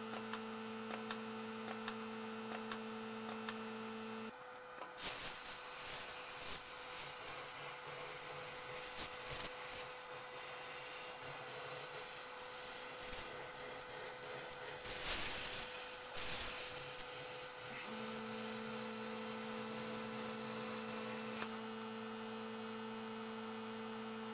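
CNC plasma cutter cutting 10 mm steel plate. A steady electrical hum with light ticking gives way about five seconds in to the steady hiss of the plasma arc and its air blast, which runs for most of the cut. The hum comes back near the end.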